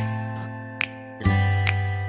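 Background music: sustained chords that fade, with a new chord struck a little past a second in, and light percussive ticks between them.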